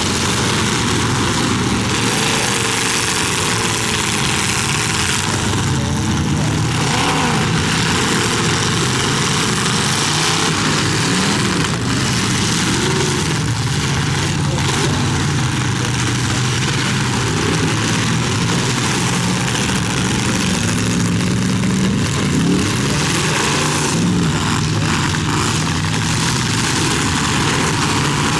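Several demolition derby cars' engines running and revving at once, pitches rising and falling against each other, with a few brief knocks mixed in.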